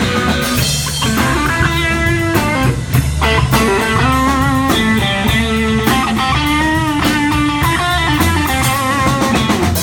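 Rock music instrumental break: an electric guitar plays a lead line with bent, wavering notes over bass and drums.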